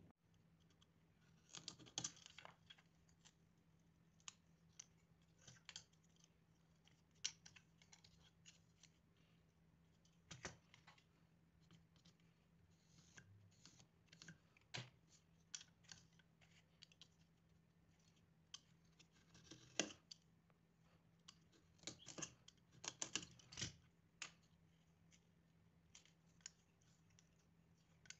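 Faint, irregular scratches and clicks of a snap-off utility knife scoring and cutting glued popsicle-stick wood into wing shapes, with pencil strokes marking the cut lines.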